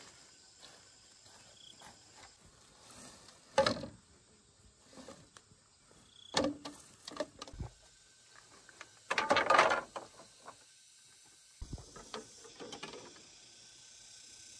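A woven bamboo lattice panel and bamboo poles being handled and set down in grass: a few scattered knocks, clatters and rustles, the loudest and longest about two-thirds of the way through.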